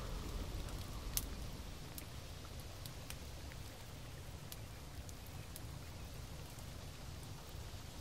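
Faint ambient background: a steady low rumble with scattered light ticks, drip-like, one sharper tick about a second in.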